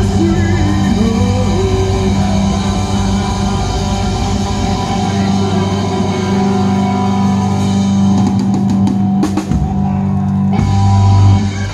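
Live rock band: an amplified electric guitar holding long low chords over a drum kit. A run of sharp drum hits comes about eight seconds in, and the song ends on a loud held chord.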